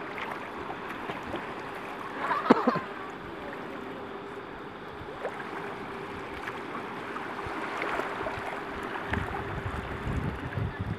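Shallow sea water and surf washing steadily around wading legs, with a faint steady hum under it. A brief voice calls out about two and a half seconds in, and a low rumble, like wind on the microphone, comes in near the end.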